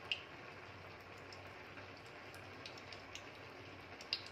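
Mustard oil trickling into a hot aluminium kadhai, with a faint steady hiss and scattered light ticks.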